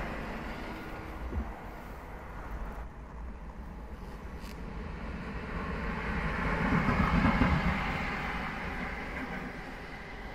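Electric train noise at trackside: a ČD Cargo Siemens Vectron electric locomotive running light passes, a low rumble with a hiss that swells to its loudest about seven seconds in and fades as it moves away. In the first seconds a departing electric multiple unit is heard fading.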